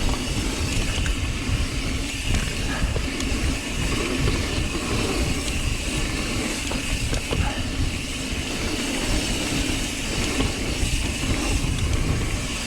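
Mountain bike rolling fast down a dirt trail: a steady rumble of tyres on dirt and wind noise, with small knocks and rattles from the bike over bumps.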